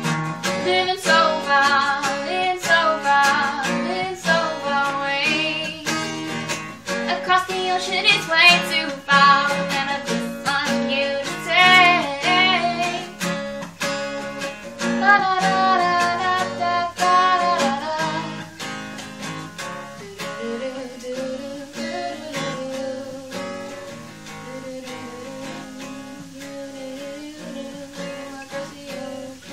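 A female voice singing to a strummed acoustic guitar. About eighteen seconds in the voice stops and the guitar plays on alone, more softly.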